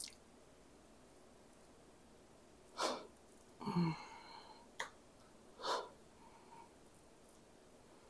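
Faint and mostly quiet, broken by two short breaths or sniffs, a brief hummed vocal sound between them, and one light click.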